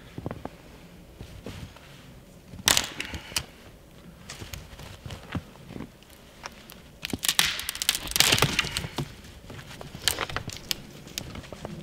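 Crunching and crackling in snow-covered undergrowth: footsteps on snow and dry twigs, with sharp cracks of wood. A short burst of crackles comes about three seconds in, and the loudest, densest run of crunching and cracking comes about seven to eight seconds in.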